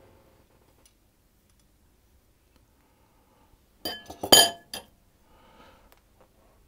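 A mixing bowl knocked about while biscuit dough is squeezed together by hand: a quick cluster of sharp clinks with a short ring about four seconds in, then faint soft rustling.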